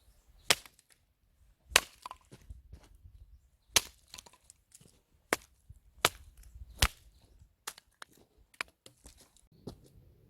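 Firewood being split by hand: about nine sharp, separate knocks of blows on wood, roughly one a second at an uneven pace.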